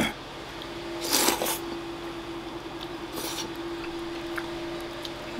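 A person slurping udon noodles off chopsticks: a noisy slurp about a second in, lasting about half a second, and a shorter, softer one about three seconds in.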